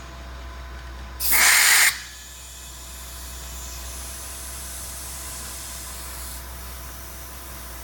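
Compressed air hissing: one short, loud blast about a second in, then a faint high hiss, as a pneumatic cylinder is pressurized and its air exhausted during a leak test. A steady low hum runs underneath.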